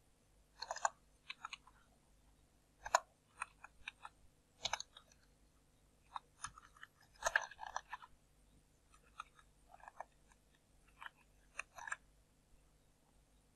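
Computer keyboard keystrokes and mouse clicks: scattered, irregular taps in small clusters, the busiest about halfway through.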